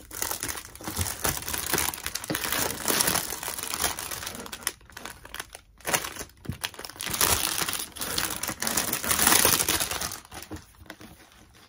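Clear plastic wrapping crinkling as it is cut open and pulled off a boxed perfume. The crackling is loudest shortly before the end, then dies away.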